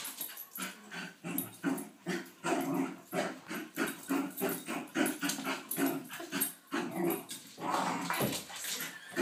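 Lakeland Terrier growling and barking in an excited play frenzy, short bursts following one another about two to three times a second.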